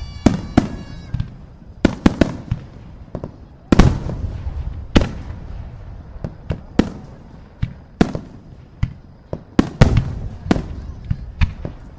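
Fireworks going off: a string of sharp bangs at irregular intervals, one every half second to second or so, the bigger ones trailing off in a low rumble.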